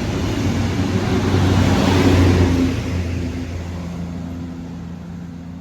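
Network Rail rail grinder train passing through at about 40 mph without grinding: diesel engine hum and wheel-on-rail noise, loud at first and fading away from about halfway through as it recedes.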